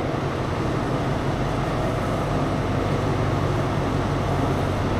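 A stationary passenger train idling: a steady mechanical hum with a low drone.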